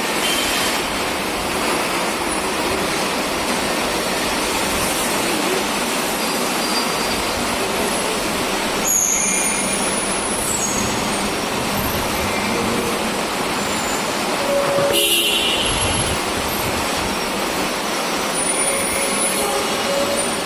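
Steady rushing vehicle noise with a few brief horn toots, about nine and fifteen seconds in.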